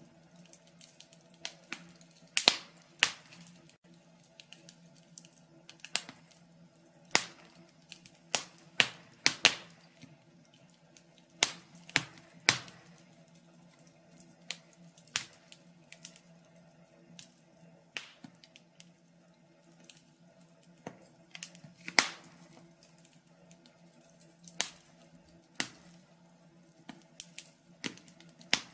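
Wood fire crackling: irregular sharp pops and snaps from the burning logs, some loud and some faint, over a faint steady low hum.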